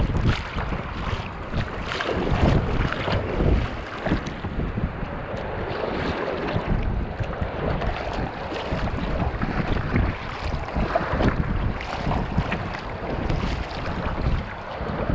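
Wind buffeting the microphone over sea water splashing and sloshing: paddle blades dipping and small waves slapping against a sea kayak's hull, in an irregular, uneven wash.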